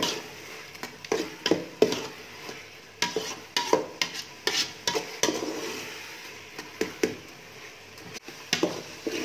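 A metal spoon stirring and scraping thick pumpkin halwa in a metal pot as it fries in ghee, with irregular scrapes and knocks against the pot over a steady sizzle.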